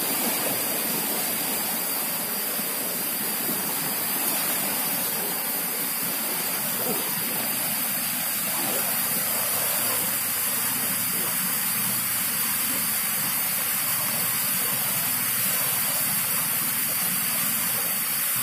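Fast-flowing river rushing over rocks and rapids: a steady, even hiss of running water.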